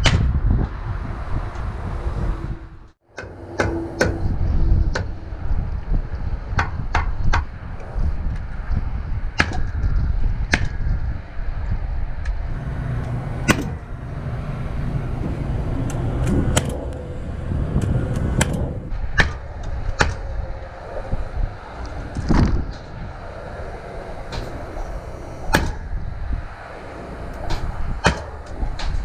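Paslode Impulse cordless gas framing nailer firing nails one shot at a time at irregular intervals, some twenty sharp shots, over low wind rumble on the microphone.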